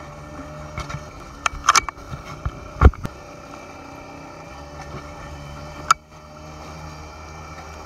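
Small motorized watercraft running steadily on open water with a low hum, water rushing and splashing past. A few sharp knocks, with one loud thump a little under three seconds in.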